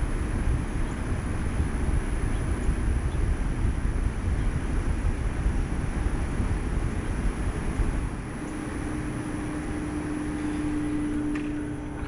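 Comfortmaker SoftSound central air conditioner condensing unit running in cooling mode, shortly after starting up: its fan blows a steady rush of air up through the top grille, with a low rumble. About eight seconds in the rumble eases and a steady hum comes through.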